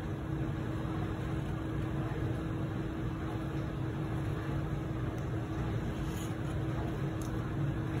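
Steady low hum and hiss of background room noise, with a faint constant tone underneath.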